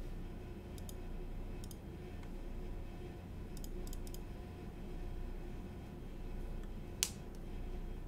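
A few light clicks at a computer, scattered singly and in a quick pair, with one sharper, louder click near the end, over a low steady hum.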